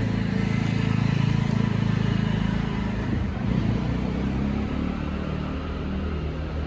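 A motor vehicle's engine passing close by, swelling to its loudest in the first couple of seconds and then easing off into a steady low traffic rumble.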